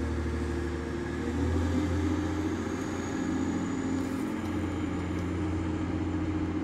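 Diesel engines of a TransPennine Express Class 185 diesel multiple unit running with a steady low drone that swells a little about a second and a half in, as the train pulls away.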